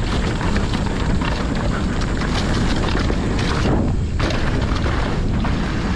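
Mountain bike being ridden down a rocky downhill trail: a constant low rumble of the tyres over the ground with a rapid clatter of the bike rattling over rocks. The bike is set up for jumps with stiff suspension and hard tyres. The hiss eases briefly about four seconds in.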